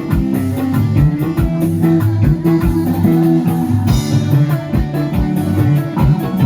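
Band music: guitar and bass guitar over a steady kick-drum beat, with a cymbal crash about four seconds in.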